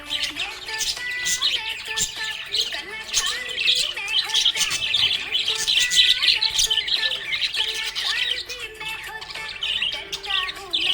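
Budgerigars chirping and warbling, a dense and continuous chatter of short squawks and tweets.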